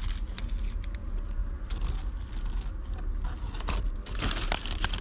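Close-up mouth sounds of a person biting into and chewing a bacon burger with crispy onions in a paper wrapper: wet, crackly chewing clicks that grow denser near the end. A low steady rumble of the car cabin lies underneath.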